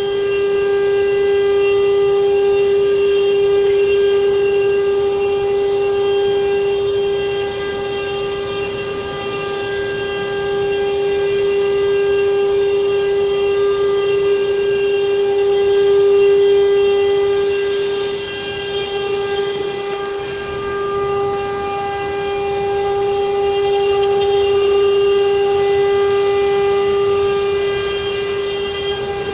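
CNC wood router spindle running with a steady high-pitched whine that holds one pitch throughout, a faint hiss underneath.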